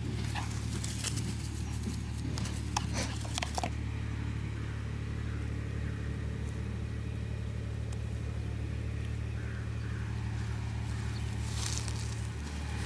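Massey Ferguson 231 tractor's diesel engine running steadily in the distance, a low drone. There are crackles and rustles in the first few seconds.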